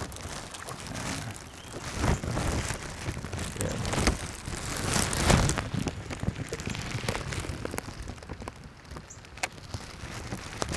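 Rain falling on the pond, a steady patter with scattered sharp drop hits. The water noise swells about two and five seconds in.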